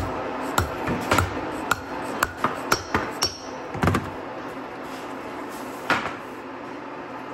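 Sharp metal clicks and knocks from a restored differential and its output flanges being handled on a workbench. They come in a quick run through the first four seconds, then one more about six seconds in, over a steady background hum.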